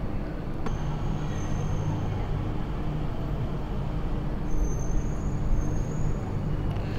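Steady aircraft cabin noise from a Boeing 787-10: a low hum with a thin high whine that comes in twice, and a single click about a second in.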